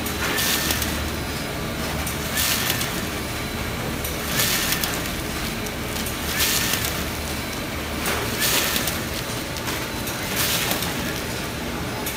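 Automatic bread-bag strapping machine cycling over a steady machine hum, with a short hiss about every two seconds as each bag is closed. A faint short chirp comes just before each hiss.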